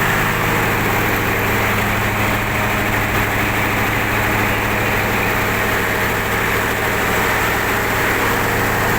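Mitsubishi 8DC11 V8 diesel engine of a generator set running steadily.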